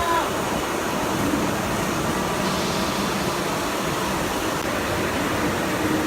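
Steady, loud mechanical noise, an even rush and hiss with a low rumble underneath and no distinct strokes or impacts.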